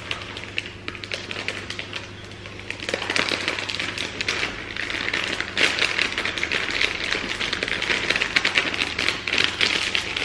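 Thin plastic bag crinkling and crackling as it is squeezed and shaken to pour dry cupcake mixture into a glass bowl, a dense run of crackles that grows busier about three seconds in.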